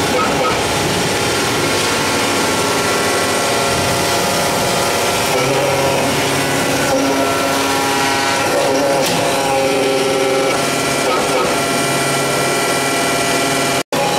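Alpha 500-ton powder compacting press running as it presses powder metal parts: a loud, steady machine hum with several whining tones, some of which drop in and out every few seconds with the press cycle. The sound cuts out for a moment near the end.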